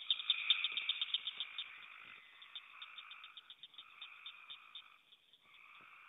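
A chorus of frogs calling: an unbroken layered trilling with a fast run of sharp clicking calls on top. It is loudest for the first couple of seconds, then thins out and grows quieter.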